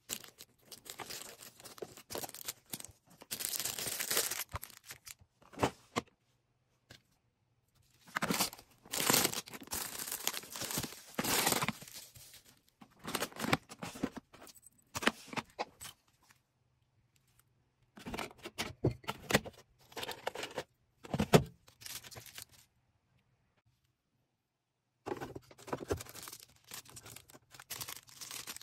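Hands packing an order: plastic packaging crinkling and tearing, with keychain parts jangling, in irregular bursts with short pauses between them.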